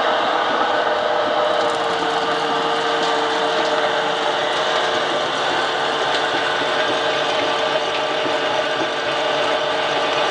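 Homemade flat-die pellet mill running, its 4 kW electric motor and Zhiguli rear-axle reduction gear giving a steady whine over a dense mechanical rattle. From about a second and a half in, a faint crunching ticking joins as the rollers press ground feed mix through the die.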